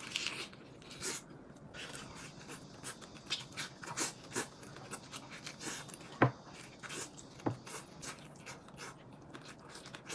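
A man eating fried noodles and braised fish: faint chewing and slurping, broken by scattered short clicks, the sharpest about six seconds in and again about a second and a half later.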